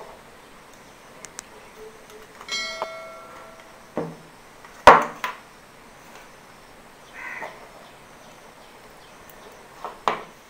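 Hands handling a small circuit board and plugging audio cables and connectors on a tabletop: scattered clicks and knocks, a short ringing clink about two and a half seconds in, a sharp knock, the loudest, about five seconds in, and two clicks near the end.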